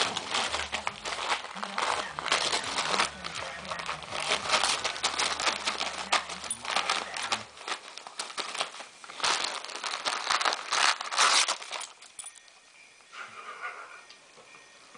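A Shih Tzu shredding wrapping paper: busy, irregular crinkling, rustling and tearing of the paper in quick bursts. It dies down about twelve seconds in.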